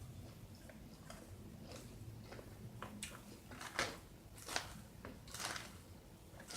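Close-up chewing and biting of crunchy food, a handful of short crunches coming more often and louder in the second half.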